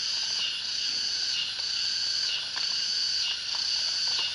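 Outdoor insect chorus: steady high-pitched chirring that swells and dips in a regular rhythm about once a second.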